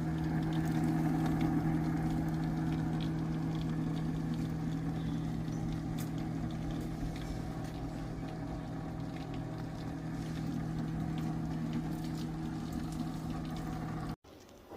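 Small electric pump running steadily with a constant hum, circulating descaling solution through a tankless water heater.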